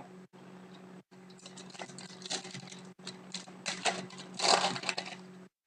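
Crinkling and rustling of a hockey trading-card pack's wrapper and cards being handled and opened, in a string of scratchy bursts that grow loudest about four and a half seconds in. A steady low hum runs underneath.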